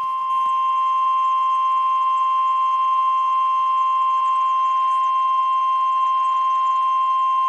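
NOAA Weather Radio 1050 Hz warning alarm tone: one steady, high-pitched tone, the signal that an urgent alert, here a tornado watch, is about to be read.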